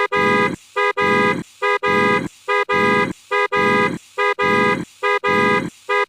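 Looped comedy sound effect: a short horn honk followed by a hard breath, repeating evenly about seven times, a little faster than once a second.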